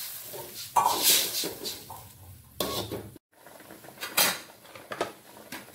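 A metal spatula knocking and scraping against an aluminium wok while stirring diced potatoes in water, with several sharp clanks spread through the clip.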